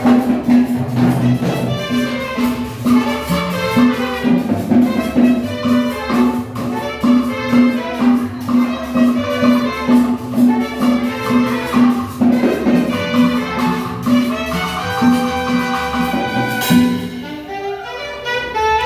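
Salsa music with brass and a steady, even beat; the band drops out briefly near the end before the beat comes back.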